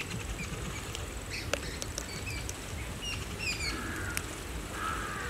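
Small birds chirping in short, scattered calls, with a few faint clicks over a low steady background.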